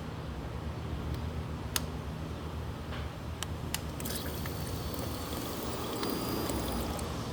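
Fuel trickling from the disconnected fuel line of a 2000 Suzuki GSX-R600 into a plastic bucket, with a few sharp clicks. What drains is water-contaminated fuel, the tank holding water separated from the gasoline.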